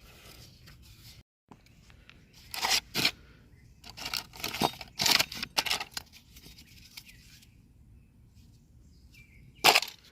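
Sharp clicks and metallic knocks of parts and tools being handled in an auto-repair job. They come in a pair a little over 2 s in, a busier cluster between about 4 and 6 s, and one loud knock near the end.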